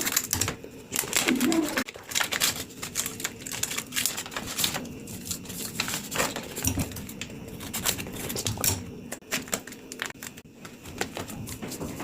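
Paper and plastic packaging crinkling and rustling, with quick irregular clicks and taps, as a sticker blind bag is opened and its contents handled.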